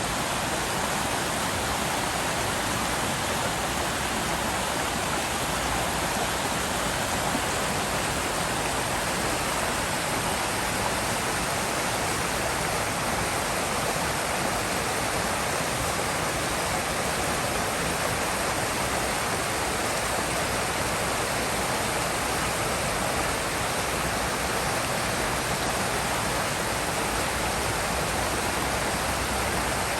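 River flowing, a steady rush of water.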